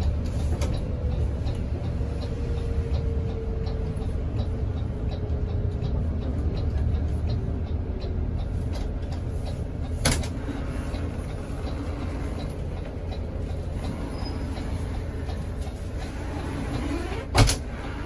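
Mercedes-Benz O500RS 1836 sleeper coach under way, heard from inside the cabin: a steady low engine and road rumble with a faint whine slowly falling in pitch. Two sharp knocks cut through, one about ten seconds in and a louder one near the end.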